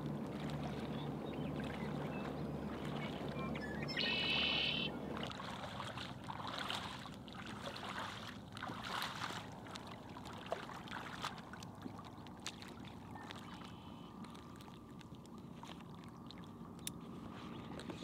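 Shallow water splashing and sloshing as a person in waders wades and drags an inflatable kayak along the shore. A bird calls once, briefly, about four seconds in, the loudest sound; after that come quieter scattered knocks and rustles.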